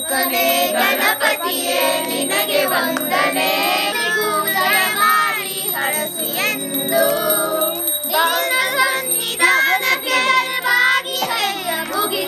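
A group of adults and children singing a Hindu devotional aarti song together, with a small bell ringing.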